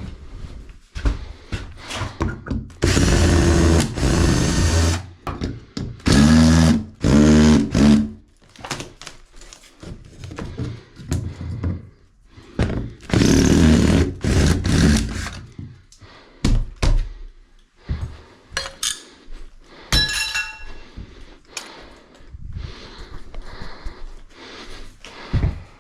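A handheld power tool, drill-like, running in several short bursts of one to two seconds each, with knocks and clatter between them.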